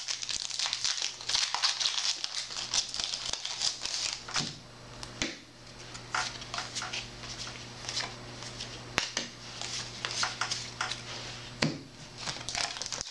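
Foil trading-card booster pack wrappers crinkling and cards being handled, with many sharp clicks and snaps over a low steady hum.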